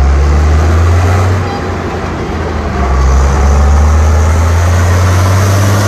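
Tractor engine running with a deep, steady drone that eases off for a second or so and then picks up again.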